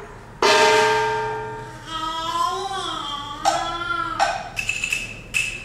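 Cantonese opera music: a sharp percussion strike about half a second in that rings on and fades, then a wavering melodic line, and more strikes and a held high note toward the end.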